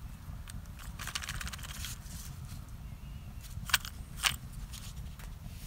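Wooden matches rattling and clicking in a birch-bark matchbox as it is filled and handled: a quick run of small clicks about a second in, then two sharper knocks a little past halfway, over a low steady rumble.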